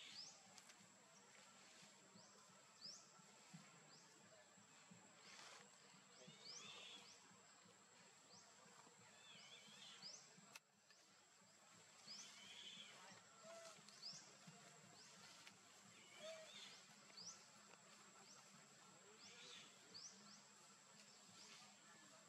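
Faint outdoor forest ambience: short high chirps about once or twice a second and a few warbling calls, over a steady high-pitched whine.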